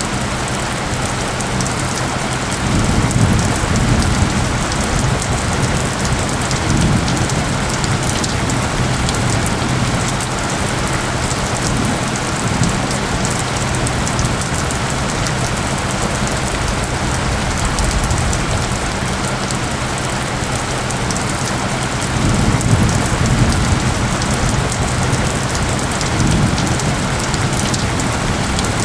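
Steady heavy rain falling, with low rumbles of thunder swelling about three seconds in and again near the end. A low steady tone from the mixed-in isochronic tones runs underneath.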